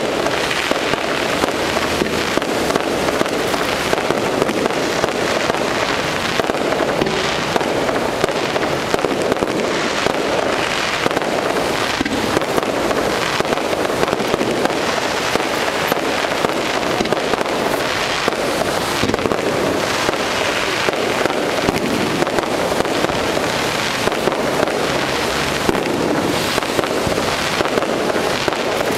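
Aerial fireworks display: a dense, continuous barrage of shell bursts, bangs and crackle following one another in rapid succession at a steady loud level.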